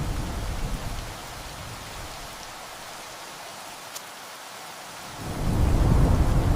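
Steady hiss of heavy rain with thunder: a low rumble dies away in the first second, and a new roll of thunder swells in about five seconds in.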